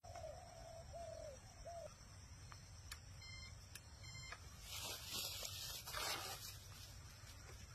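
Quiet field ambience: a steady low wind rumble, three short arched bird calls in the first two seconds, and two brief hissing gusts of noise around the middle.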